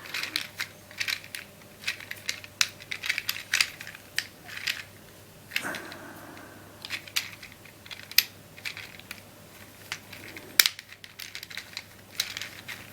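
Plastic tiles of a Leesho (Liso) tile sliding puzzle clicking and clattering as a row is worked around it by hand, in irregular small clicks with one sharper click about ten and a half seconds in.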